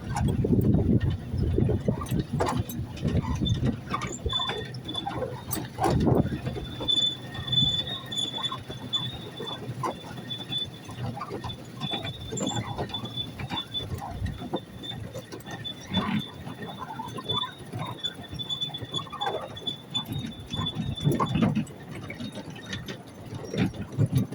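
Miniature railway train running with a rattle of wheels and knocks over the track, and a thin high-pitched squeal that sets in about five seconds in and stops a few seconds before the end, typical of wheel flanges rubbing the rail on a curve.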